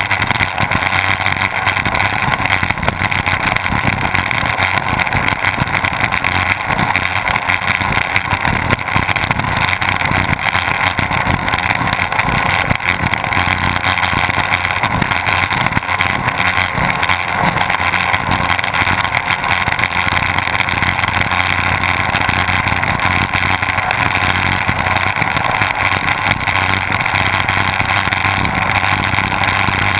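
Twin Mercury OptiMax two-stroke outboard motors running steadily at racing speed, heard on board the powerboat at close range. The sound stays loud and even throughout, with no change in pace.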